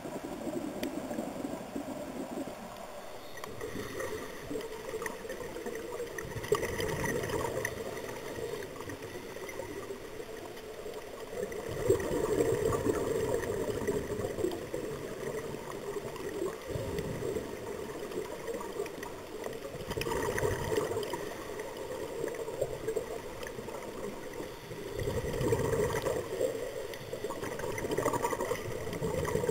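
Scuba divers' exhaled regulator bubbles, a gurgling bubbling heard underwater, swelling in bursts every few seconds with each breath out.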